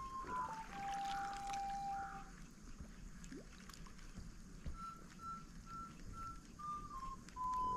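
Background music: a simple tune of clean, whistle-like notes, with a long lower note, then four short even beeps higher up, stepping down to a held note near the end.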